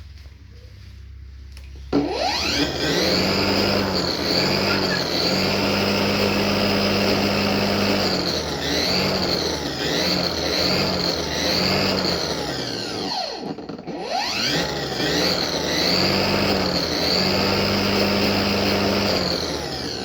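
Battery-powered lawnmower's electric motor and blade starting up suddenly about two seconds in and running with a steady hum and a high whine whose pitch wavers. About two-thirds of the way through it winds down for a moment, then spins up again and runs on.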